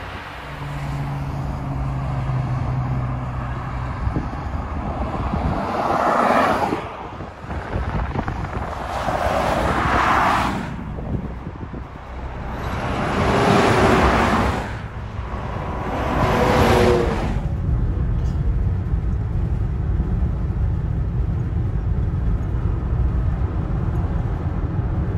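Highway traffic: vehicles, semi trucks among them, passing one after another, each a rush of tyre and engine noise that swells and fades, over a steady low road rumble.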